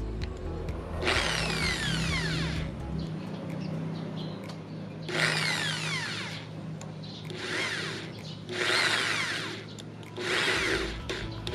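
Electric drill with an 8 mm bit boring through a thin plastic compartment in about five short bursts of one to two seconds, with high, falling pitch sweeps as the bit cuts.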